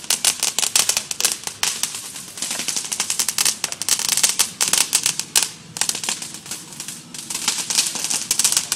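Ground firework on asphalt crackling: a dense, rapid stream of small pops that eases briefly about five and a half seconds in.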